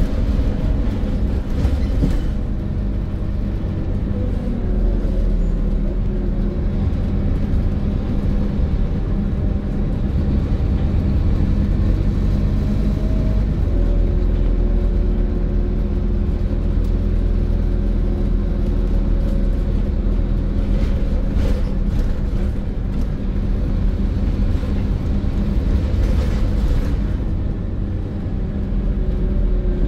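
Scania N230 bus's five-cylinder diesel engine running under way: a steady low rumble whose pitch drifts and steps down a few times as the bus changes speed and gear.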